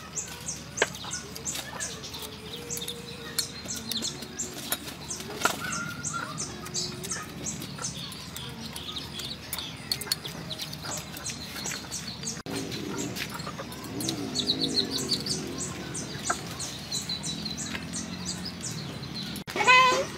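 Birds chirping in quick, evenly repeated high notes throughout, with chickens clucking and occasional sharp clicks. There is a brief louder call just before the end.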